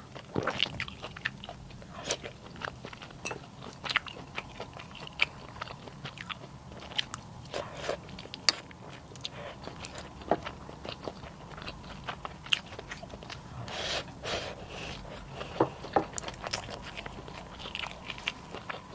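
A person eating close to the microphone: irregular chewing and crunching, with many short, sharp clicks.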